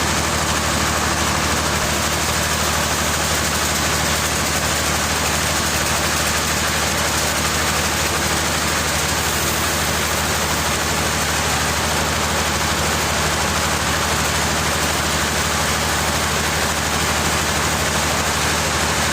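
An engine running steadily at an even speed, with a constant low hum and a broad noisy hiss over it, with no revving or change in load.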